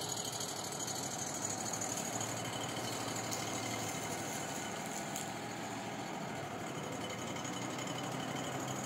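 Wood-Mizer LT35 HD portable sawmill running steadily, its engine under power as the sawhead travels along the bed, with the dust collection running.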